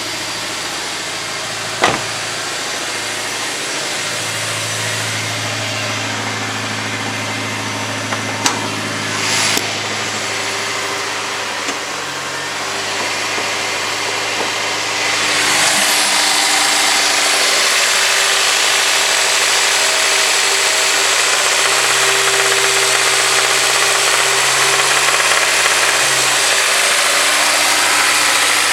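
Honda S2000's four-cylinder engine running with a knock that the owner takes for rod knock. A few sharp clicks sound in the first ten seconds, and about halfway through the engine sound gets louder and hissier.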